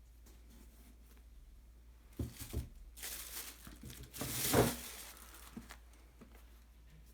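Sneaker packaging crinkling and rustling as it is handled, in several bursts from about two seconds in and loudest a little past the middle, with a couple of soft knocks at the start of the handling.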